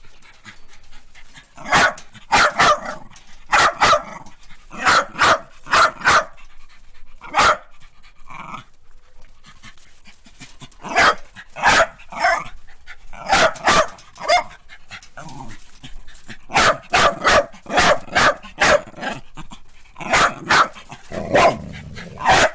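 Small dog barking in quick bursts of a few sharp, high barks at a time, with short pauses between bursts.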